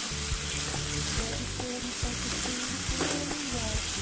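Chicken strips and water spinach sizzling steadily in a non-stick wok while a wooden spatula stirs them, with a few short clicks of the spatula against the pan. Background music plays underneath.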